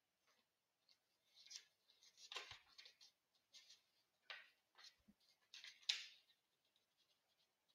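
Near silence broken by faint scattered clicks and rustles, about half a dozen short ones, the loudest about six seconds in.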